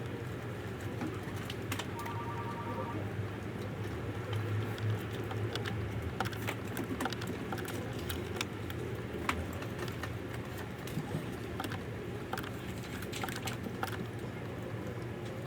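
Steady low hum with light clicks and taps scattered irregularly through it, and a short run of quick high beeps about two seconds in.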